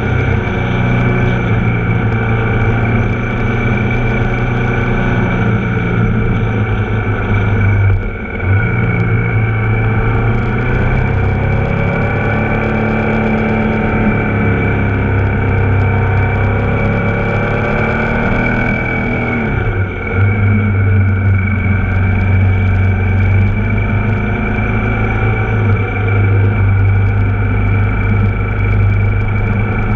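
Ducati Multistrada 1260 S's Testastretta V-twin running under way, heard from an onboard camera. The engine note dips briefly about a third of the way in and again about two-thirds in, and rises and falls in between as the bike slows for and pulls out of bends.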